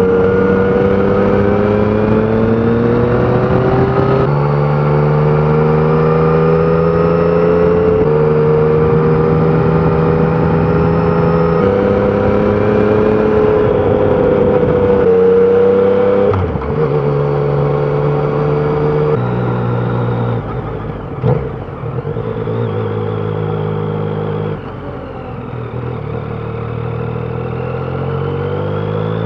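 Yamaha Tracer 900's 847 cc inline three-cylinder engine, on its stock exhaust, pulling under way. Its note climbs slowly, then steps down abruptly several times at gear changes, and rises steadily again near the end.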